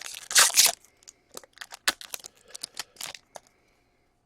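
Hockey trading cards being handled: a loud rustle of cards and wrappers for about the first second, then a string of short, sharp card flicks and clicks that stops about three and a half seconds in.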